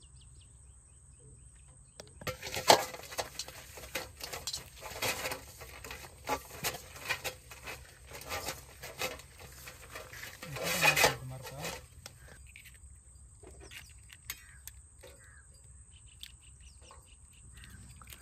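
Stainless steel bowl being greased by hand with cooking oil: rubbing and scraping with light knocks against the metal, starting about two seconds in and stopping about twelve seconds in, then only faint scattered clicks.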